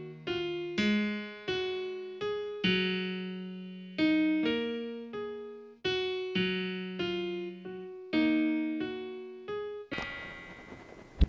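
Slow electric piano melody, single notes struck about once or twice a second, each fading away. Near the end a hiss comes in, then one sharp click, the loudest sound here.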